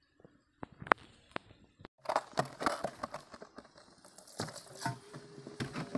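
A few light metallic clicks, one sharp, from handling the oil filter housing, then diesel poured from a plastic jerry can splashing into a steel basin from about two seconds in.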